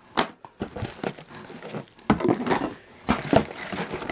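Plastic bags and cellophane-wrapped boxes crinkling and rustling as they are moved about inside a cardboard box, in several uneven bursts with a few small knocks.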